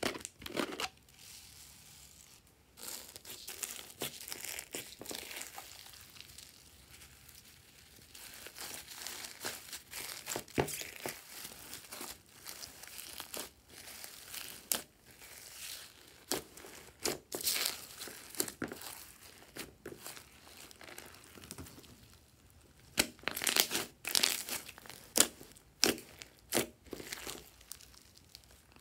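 Red slime mixed with foam beads being stretched and pulled apart by hand, making many sharp sticky crackles and pops in uneven bursts. The densest and loudest run of crackles comes near the end.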